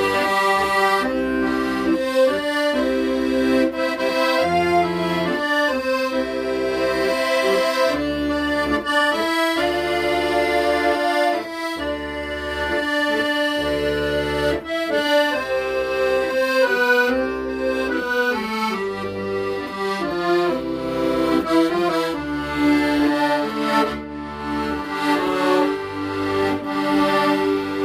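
Solo accordion playing a slow Korean ballad melody over rhythmic bass notes and chords.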